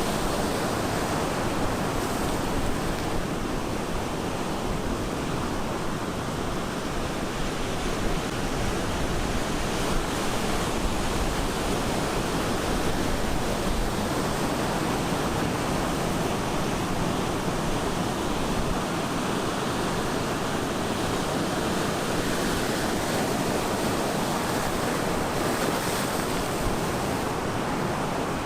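Ocean surf breaking and washing on the shore, a steady, dense rush of water with only slight swells in loudness.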